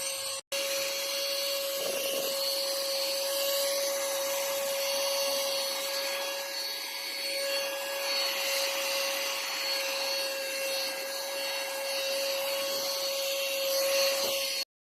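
Portable mini vacuum cleaner running steadily with a constant motor whine. It drops out for an instant just after the start and cuts off abruptly near the end.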